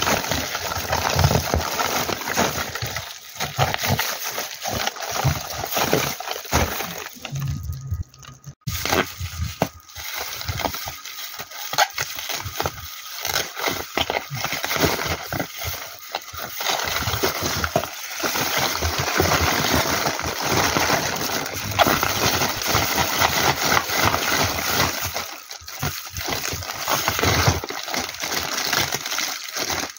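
Foil-lined bubble-wrap insulation and plastic packaging crinkling and rustling as they are handled and pulled open, with a brief break about eight seconds in.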